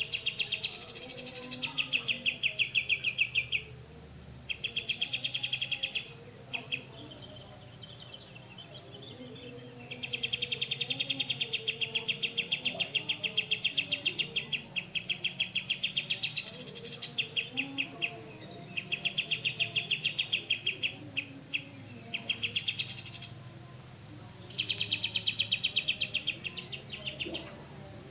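Cucak jenggot (grey-cheeked bulbul) giving its 'besetan' call: a series of fast, buzzing rattles, each lasting a couple of seconds, with short pauses between them. A steady high-pitched whine runs underneath.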